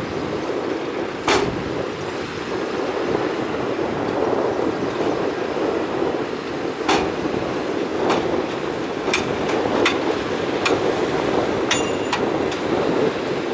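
Shantui crawler bulldozer's diesel engine running steadily under load, with sharp clanks from the machine every second or so through the second half, one of them ringing briefly.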